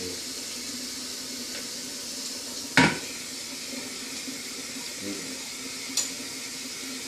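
Dishes and utensils handled at a kitchen counter: one sharp knock about three seconds in and a lighter one near six, over a steady hiss and a low hum.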